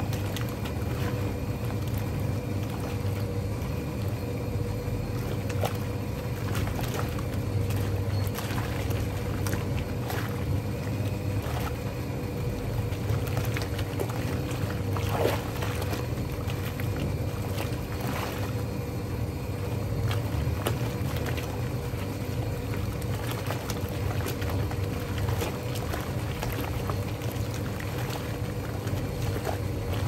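Vintage Hoovermatic twin tub washing machine running a wash: a steady motor hum with the pulsator churning and sloshing soapy water in the tub.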